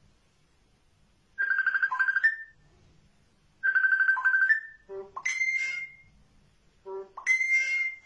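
Common myna mimicking a mobile phone ringtone: two ring-like phrases of a fast-pulsing tone about two seconds apart, each ending in a short higher note, then shorter ringtone-like calls in the last three seconds.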